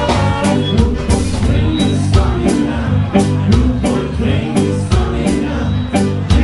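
Ska band playing live: drums, bass, electric guitar and horns over a steady beat.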